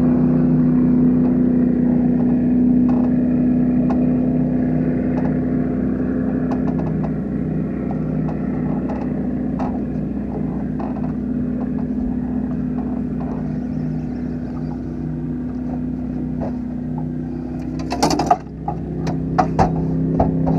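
Boat engine idling with a steady hum, with scattered light clicks throughout and a brief loud rush of noise about eighteen seconds in.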